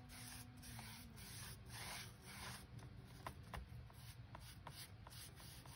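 Foam brush spreading a coat of sealer over a glued-down paper book page: faint, repeated rubbing strokes with a few small clicks.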